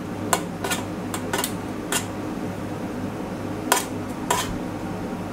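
Metal kitchen tongs clinking against a stainless steel tray: several sharp, separate clinks, over a steady low hum.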